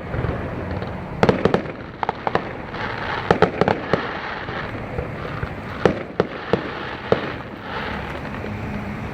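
Fireworks going off: sharp bangs and pops, some in quick clusters and some single, over a steady rushing background noise.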